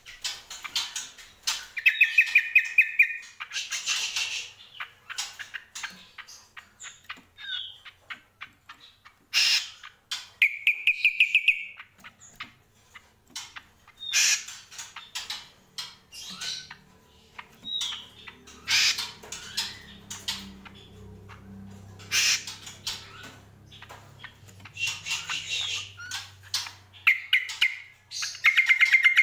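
A caged cucak kombo singing: a run of sharp chips and harsh squawky calls, broken three times by a fast rattling trill.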